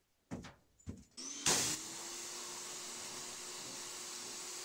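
A few knocks, then about a second in a pressure washer starts. Its motor rises briefly in pitch to a steady hum under the loud, even hiss of the high-pressure water spray striking the golf cart's roof.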